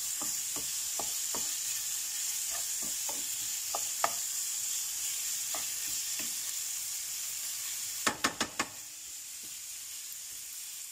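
Marinated chicken pieces sizzling as they fry in a nonstick pan, with a wooden spatula scraping and tapping as it stirs. About eight seconds in there are four quick sharp taps.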